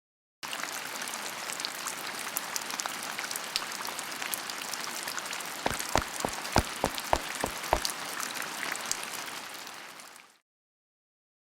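Steady patter of rain with many fine ticks. Partway through comes a quick run of about eight low knocks, roughly three a second, and then the sound cuts off suddenly.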